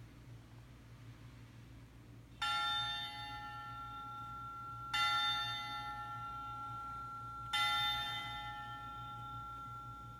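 A recorded bell tolling three times, about two and a half seconds apart, each stroke ringing on and slowly fading, played from a children's sound book's small speaker.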